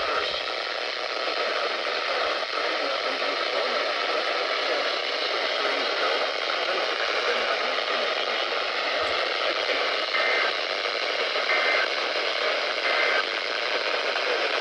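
Steady hiss of FM radio static from a NOAA Weather Radio receiver, with no programme audio over it.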